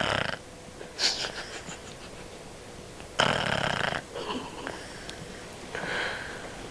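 Dog snoring in its sleep: about five noisy snoring breaths at uneven intervals, the longest and loudest about three seconds in.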